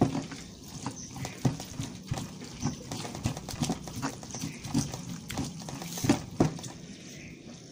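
Stone pestle grinding and pressing chili sambal in a stone mortar (Indonesian cobek and ulekan), with irregular knocks of stone on stone, a few each second.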